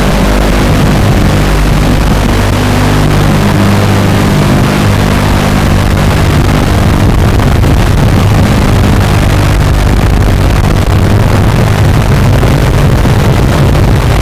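Small FPV racing quadcopter's Sunnysky 1306 brushless motors and propellers buzzing in flight, loud and steady with hiss, heard through the onboard camera's microphone.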